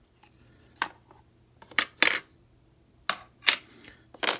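Sharp clicks and light knocks, about six of them spread through, from the parts of a Copal flip clock's case being handled and fitted together.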